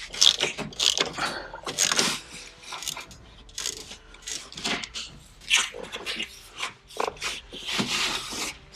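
Irregular clunks, scrapes and rubbing as the window glass of a Ford Focus door is worked up and out of the door shell past its seals.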